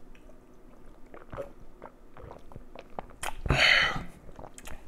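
A man drinking beer from a glass mug: faint swallowing clicks, then a louder breathy rasp lasting under a second about three and a half seconds in.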